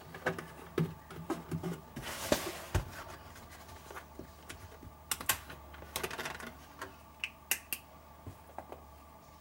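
Scattered clicks, taps and light knocks of plastic oil bottles and caps being handled during an engine oil refill, with a short rush of noise about two seconds in.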